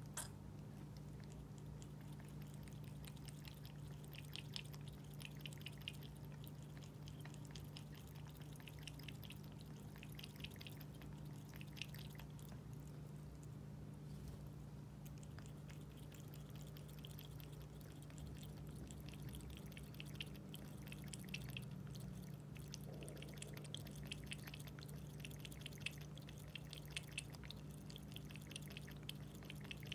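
An American Curl cat lapping water from a pet fountain: runs of quick, wet tongue-laps that come in bursts with pauses between. Under them runs the low, steady hum of the fountain's pump.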